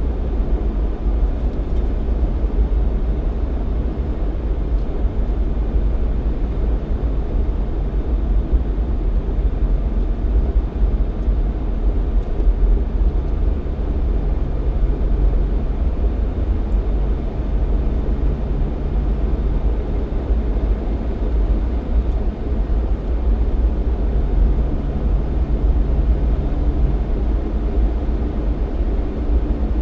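Jeep Cherokee XJ driving on a snowy road: a steady low rumble of engine and tyre noise, with a faint engine hum that comes and goes.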